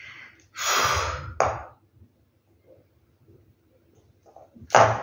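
A woman's breathy sighs and gasps: a long loud exhale about half a second in, a short breath right after it, and another sharp breath near the end.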